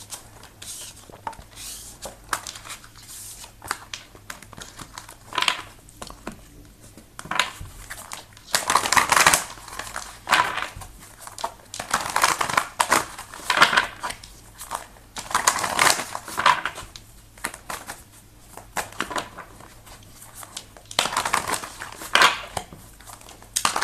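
A deck of tarot cards being shuffled by hand: papery rustling and slapping in spells of a second or two, several times over.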